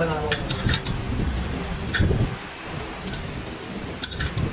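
Steel wire and a flat bending bar clinking against a steel rod clamped in a bench vise as a wire barbell spring clamp is bent by hand: a handful of sharp metallic clinks at irregular intervals.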